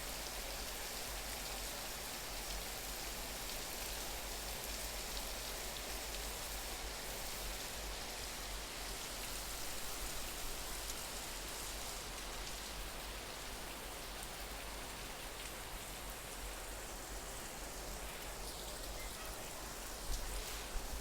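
Steady rain falling, an even, dense hiss of drops, with a few sharper drop taps near the end.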